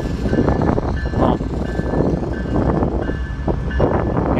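Wind buffeting the microphone and a steady low rumble during a bicycle ride, with a short high tone repeating about once a second.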